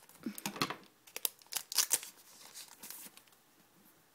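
A foil Pokémon card booster pack being torn open and crinkled: a quick run of sharp crackling tears and rustles for about three seconds, then it stops.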